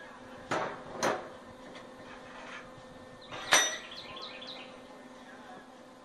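Steel clanking on a steel welding table: two sharp knocks about half a second apart, then a louder ringing clang about halfway through with a short rattle after it, as a length of steel tubing used as a bending lever is set down. A low steady hum runs underneath.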